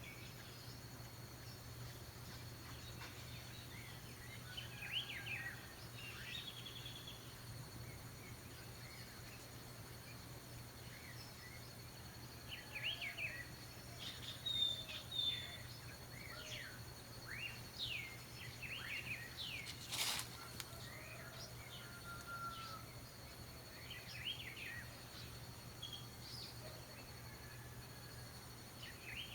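Orioles (calandrias) calling with short, high whistled notes and chirps, scattered throughout and busiest in the middle, over a steady low hum. One sharp click about twenty seconds in.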